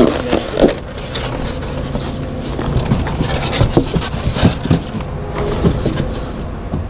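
Cardboard, styrofoam packing and the metal tank of a solar water heater scraping and knocking as it is shifted in its box, in a string of short scrapes and thumps. A steady engine hum runs underneath.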